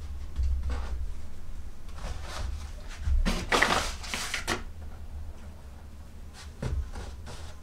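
Paper flour bag rustling as a hand reaches in for flour, a few seconds in, the loudest sound here; around it, soft taps and pats of dough being handled on a wooden board, over a low steady hum.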